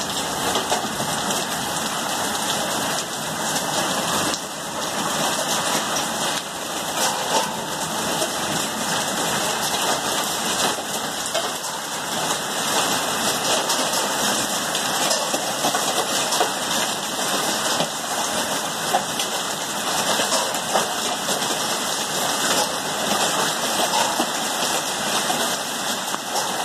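Heavy rain mixed with small hail pouring onto grass, a concrete path and a flooded street: a steady, even hiss of countless drops, thick with fine ticks.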